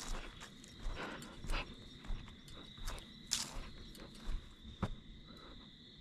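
Footsteps walking over grass and dry fallen leaves: irregular crunches about one or two a second, the sharpest about three seconds in, over a faint steady high tone.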